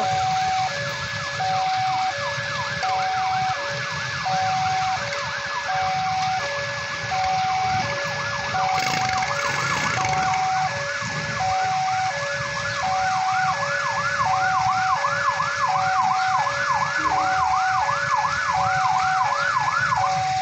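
Railway level-crossing warning alarm sounding a steady alternation of two tones, over an emergency-vehicle siren wailing up and down. About two-thirds of the way in the siren quickens to a fast yelp. Traffic and wet-road noise run beneath.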